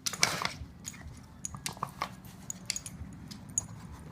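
Dog working a plastic treat-puzzle toy, nosing at its covers to get at hidden treats: a brief rustling burst near the start, then scattered light clicks and knocks.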